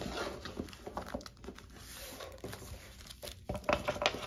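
Packaging crinkling and rustling as sticker sheets and their wrapping are handled, in quick irregular crackles.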